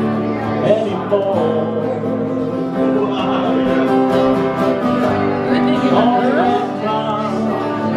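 Two acoustic guitars strumming and picking together at a steady level, an instrumental stretch of a live folk-rock song.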